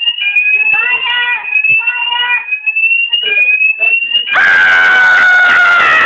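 Fire alarm sounder set off by a test at a manual call point, giving a tone that rises in pitch and repeats about once a second. From about four seconds in, a much louder noisy blast with a slowly falling tone covers it for about two seconds.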